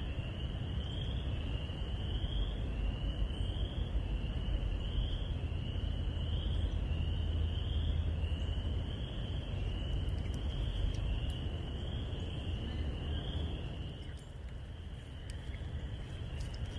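Frog chorus of spring peepers and western chorus frogs: many high, rising peeps overlapping into a steady din, with a low rumble underneath.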